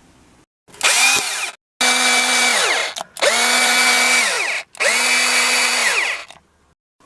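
Electric drill run in four bursts, the first short and the others a second or more each, its motor whine holding steady and then falling away each time the trigger is let go.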